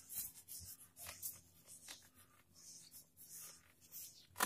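Whiteboard duster wiping across a whiteboard in a run of short, faint swishing strokes, with one sharp knock near the end.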